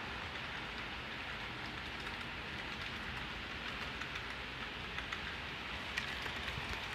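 Model train running on the layout's track: a steady rolling hiss from wheels and motor, with a few light clicks about five and six seconds in.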